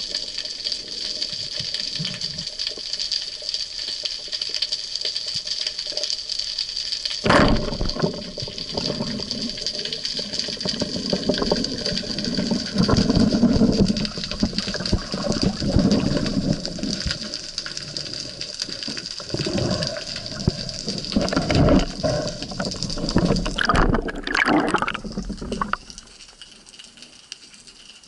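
Underwater sound from a camera on a band-powered speargun: a steady hiss, then a sharp crack about seven seconds in as the speargun fires. After it comes an uneven low churning of water moving over the camera housing while the diver swims, which turns much quieter near the end.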